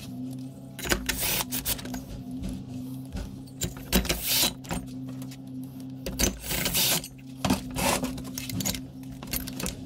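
Irregular clicks, clinks and scrapes of hand tools and small metal parts being handled while a two-stroke brush cutter engine is reassembled, over a steady low hum.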